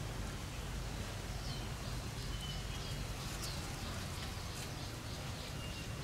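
Birds calling now and then: several short high chirps and whistles, some held level and some quickly falling, over a steady low background rumble.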